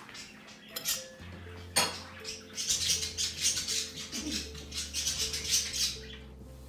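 A metal spoon scraping and stirring through dry semolina in a wooden bowl: a gritty rustle, with two sharp clicks in the first two seconds. Soft background music with long held low notes plays underneath.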